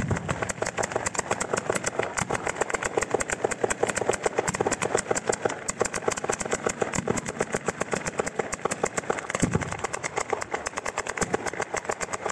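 Ground-level firework battery going off: a fast, steady string of firecracker bangs, many a second, with a few deeper thumps mixed in.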